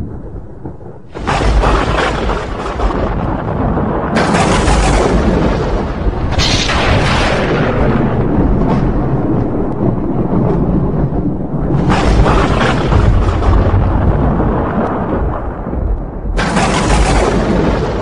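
Thunderstorm: wind rushing over the microphone in a constant low rumble, with thunder rolling. About a second in, and again near four, six, twelve and sixteen seconds, the sound surges suddenly louder and dies away over a second or two.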